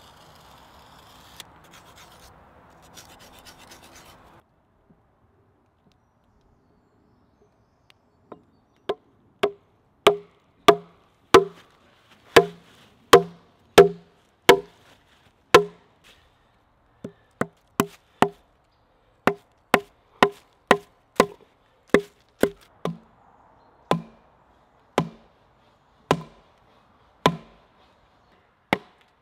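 A gloved hand rubbing across the sawn end of a log, then, after a few seconds' pause, a wooden club striking the back of an axe head set into the end of a cedar log to split it. The strikes come as a long series of sharp knocks, about one to two a second, in runs with short pauses between.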